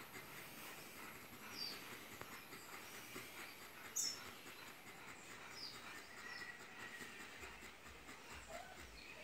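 Quiet outdoor ambience with a few faint, short, high bird chirps; the loudest comes about four seconds in.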